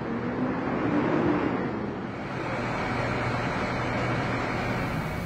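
Tracked excavator's diesel engine running steadily.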